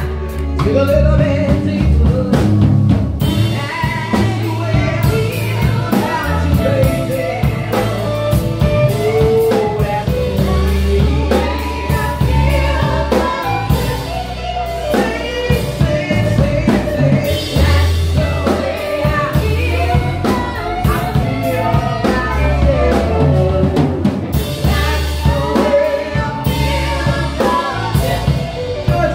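Live band playing a song: a singer over drum kit, bass and keyboard, with wavering sung notes throughout.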